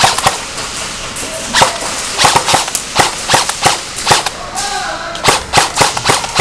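Airsoft guns firing single shots in quick, irregular succession: sharp cracks, some a fraction of a second apart and others with short gaps between them.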